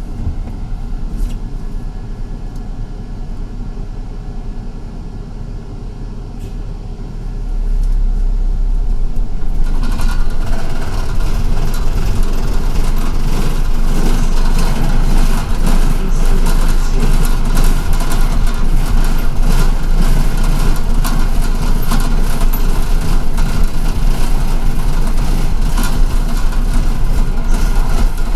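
City bus engine and running noise heard from inside the cabin: a lower, steadier run for the first several seconds, then the sound grows much louder about eight seconds in as the bus speeds up, and it stays loud and steady after that.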